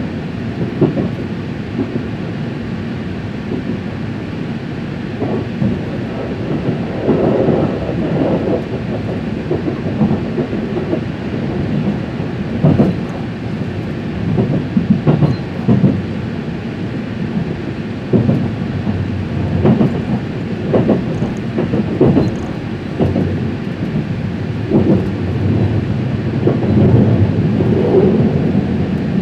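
Train passing close by: a steady low rumble with irregular knocks of wheels over rail joints, swelling louder near the end.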